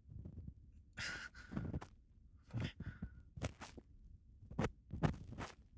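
Ear pick scraping and rubbing close to the microphone during an ear-cleaning session: about ten short, separate strokes, each with a soft low thud.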